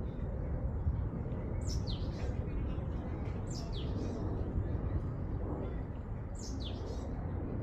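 Bird calls outdoors: three clusters of short, high notes that sweep quickly downward, over a steady low rumble of outdoor background noise.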